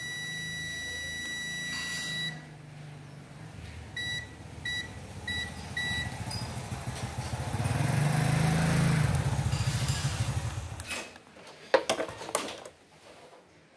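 Digital multimeter in continuity mode beeping as its probes test the tactile keypad switches on an induction cooker's control board. There is one steady beep of about two seconds, then four short beeps about two-thirds of a second apart, each beep showing a switch that still closes. A low rumble with hiss swells and fades in the middle, and a few sharp clicks follow near the end.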